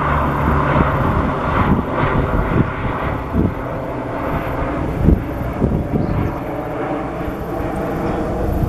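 A distant engine droning steadily, with several low thumps of wind buffeting the microphone.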